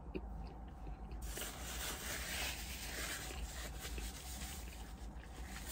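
Paper napkin rubbing and rustling against a mouth and beard, a scratchy rustle that starts about a second in and goes on for several seconds.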